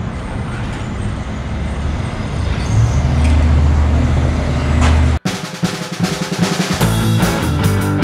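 Street traffic noise, with a vehicle's low rumble growing about three seconds in. At about five seconds it cuts off abruptly and rock music with drums takes over.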